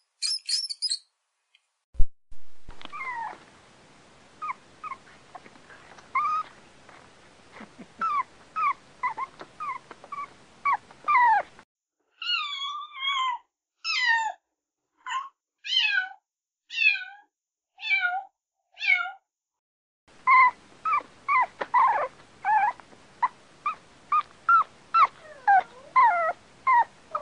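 Animal calls in three runs: first a string of short squeaky calls, then a cat meowing about eight times, roughly once a second, then corgis yipping in quick short calls as they play.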